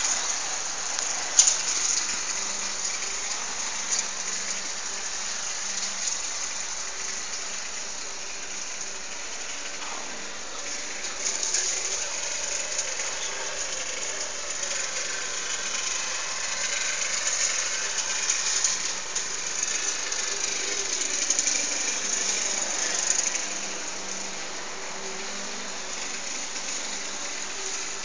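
An airliner's engine noise overhead, a steady rushing sound that swells slightly in the second half and then eases.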